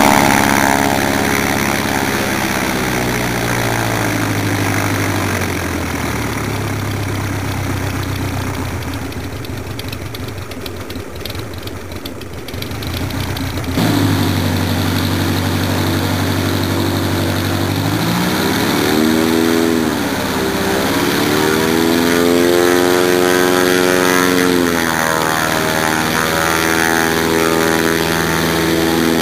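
Jodel D18 light aircraft's propeller engine running while it taxis on grass, settling to a steady low throttle in the first few seconds. In the second half the engine is revved up and eased back several times, its pitch rising and falling.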